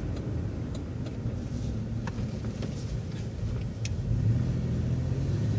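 City bus engine running, heard from inside the bus: a steady low hum that grows stronger about four seconds in as the bus picks up speed.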